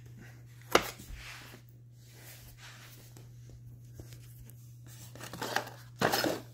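Small paperboard and cardboard boxes being handled: a sharp knock a little under a second in, then light rustling and scraping, louder near the end.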